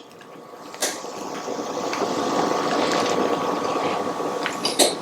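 Sparkling wine poured from a bottle into a cocktail glass: a steady pouring fizz that builds over the first few seconds and then eases, with a light clink about a second in and a few clicks near the end.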